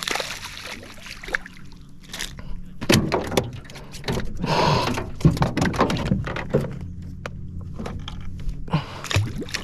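Scattered knocks and thumps of fishing gear being handled in a small boat, with a short rustling burst near the middle, over a steady low hum.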